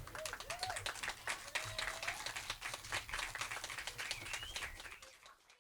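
Audience clapping after a poem, fading out about five seconds in.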